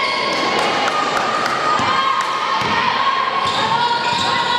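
A basketball being dribbled on a hardwood court during play: several sharp bounces over a steady din of voices in the sports hall.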